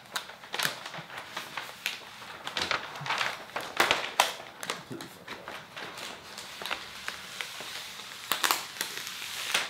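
A large sheet of Xpel Stealth matte paint protection film crinkling and rustling in irregular bursts as it is handled and trimmed with scissors.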